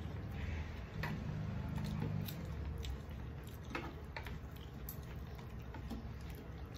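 Eating by hand: fingers mixing rice and curry on plastic plates, with chewing and mouth smacks, heard as irregular small clicks over a low steady hum.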